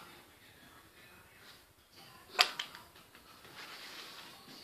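Handling noise from rocket motor parts on a table. A single sharp click about halfway through is followed by a few lighter taps, and a soft rubbing near the end as a cloth wipes a black motor part.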